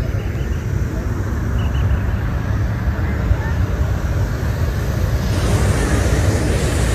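Crowd chatter over a steady low outdoor rumble. A brighter hiss joins about five seconds in.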